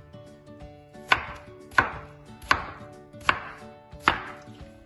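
A kitchen knife chopping down through a slab of watermelon onto a wooden cutting board, cutting it into cubes: five sharp chops at an even pace, about three-quarters of a second apart.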